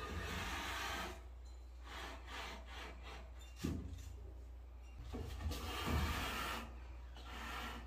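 Repeated rubbing or scraping strokes, with a single knock in the middle.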